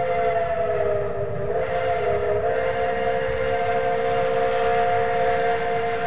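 Steam locomotive whistle blowing one long blast, several notes sounding together as a chord, sagging briefly in pitch about a second or two in, with the low rumble of the train beneath.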